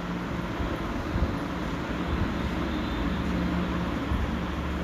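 Batter-coated susiyam ball deep-frying in hot oil, a steady sizzle of bubbling oil. The strong bubbling is the sign that the oil is hot enough for frying.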